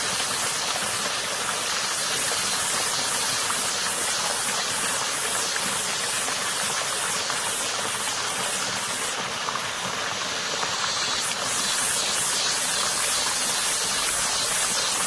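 Water running in a small creek, a steady rushing, with a cicada's high pulsing buzz over it. The buzz breaks off for about two seconds past the middle, then starts again.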